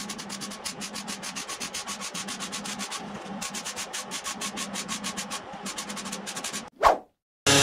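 MIG welder laying short tack welds on the steel of a Dodge Ram bed side: a rapid, even crackle of about ten pulses a second, pausing briefly once. The tacks are kept short and spaced to hold the heat down so the new wheel arch panel does not warp. The crackle stops near the end, a single loud thump follows, and after a moment of silence music starts.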